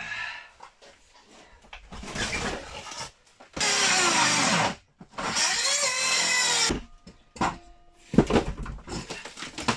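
Handheld power saw cutting into old wooden roof boards in two short runs of about a second each, its pitch sagging as the blade loads. A few knocks and clatters of loose wood follow near the end.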